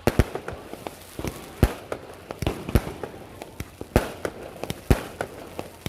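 Fireworks and firecrackers going off: a run of sharp bangs at uneven intervals, roughly one to two a second, with smaller pops between them.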